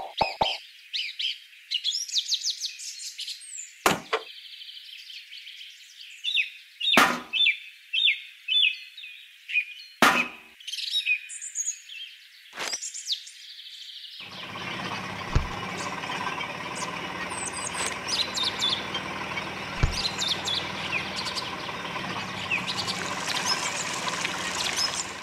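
Birds chirping, with a few short knocks in the first half as clay fruit are set into a basket. About halfway through, a steady whirring hum starts and keeps going, the miniature juice machine's small motor running while juice pours from its spouts into metal buckets.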